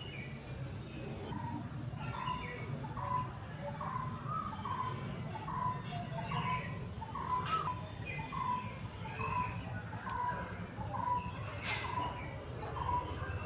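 A bird repeating a short call note steadily, a little under twice a second, over continuous high-pitched insect chirping, with a low rumble underneath.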